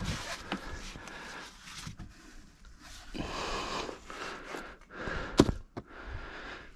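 Rustling, scraping and light knocks of a tractor's air filter element being handled and pulled out of its housing, with a sharp click about five and a half seconds in.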